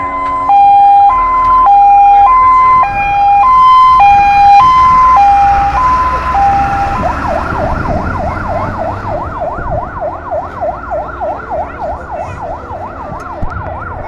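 Fire truck's siren sounding a two-tone hi-lo pattern, then switching about halfway through to a fast rising-and-falling yelp, about three to four sweeps a second. It grows fainter as the truck pulls away, with the engine rumbling as it passes.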